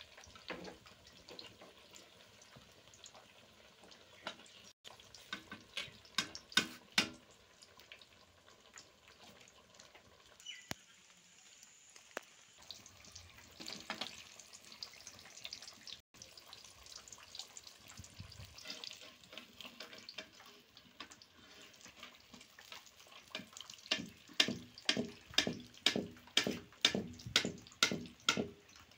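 Bottle gourd fritters deep-frying in a wok of hot oil with a steady, faint sizzle. A perforated metal skimmer clicks and scrapes against the wok in short groups, then in a quick run of about two strokes a second near the end as the fritters are lifted out.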